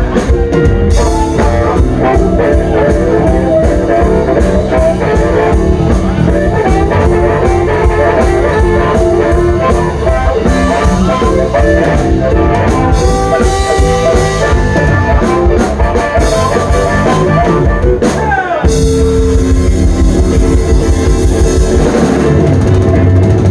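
Live blues band playing loudly without vocals: drum kit, guitar and held melody notes, with a brief stop about eighteen seconds in before the band comes back in.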